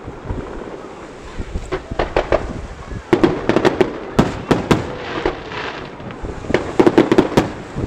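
Aerial firework shells launching and bursting: a run of sharp bangs, packed into two quick flurries about three seconds in and near the end, with single reports between.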